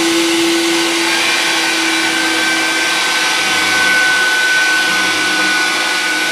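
Power pipe threading machine running, spinning a 20A (3/4-inch) pipe in its chuck while the machine's pipe-cutter wheel cuts through it. A steady motor and cutting noise, with a high, steady squeal that comes in about a second in and edges slightly upward in pitch.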